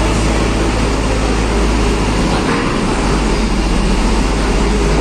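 Steady low diesel rumble as a Hino 500 dump truck drives slowly up a ferry's loading ramp onto the car deck, over the ship's constant machinery drone.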